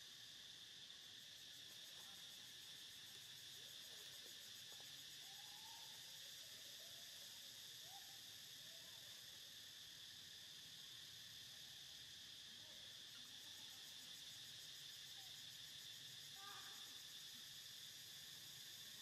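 Faint, steady, high-pitched drone of insects, with a few soft, short gliding calls now and then.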